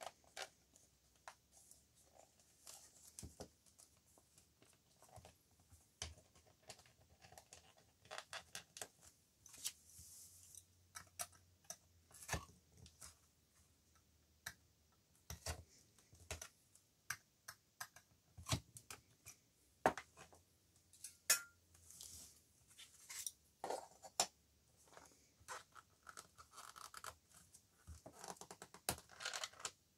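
Bookbinding awl piercing sewing holes through folded paper along a plastic hole guide: a run of irregular sharp clicks and pops, with paper rustling and sliding in between.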